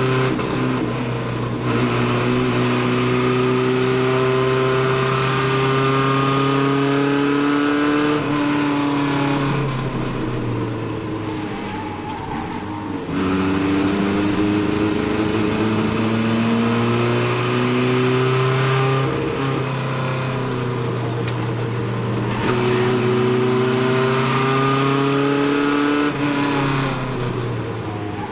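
Chevy LUV race truck's engine heard from inside the cabin, revving under load as the truck laps the track. The engine note climbs slowly for several seconds, then eases and falls away three times as the driver lifts off for corners, before pulling again.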